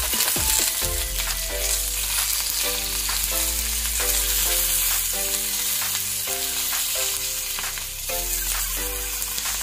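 Stuffed capsicums sizzling in hot oil in an aluminium kadhai, with a wooden spatula scraping and turning them. Soft background music with a repeating run of notes plays under the sizzle.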